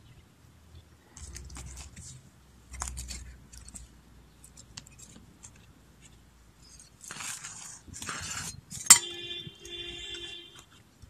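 Hands scraping, scooping and pressing stony garden soil around olive cuttings in plastic nursery pots: scattered soft rustles and scrapes, a denser gritty scraping about two-thirds of the way through, then one sharp click. A steady high whine follows for under two seconds.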